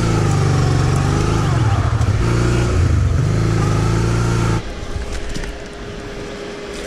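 Honda Transalp 650 V-twin engine running while riding, its pitch rising and falling with the throttle, then stopping suddenly about four and a half seconds in. After that, quieter handling sounds with a few light clicks.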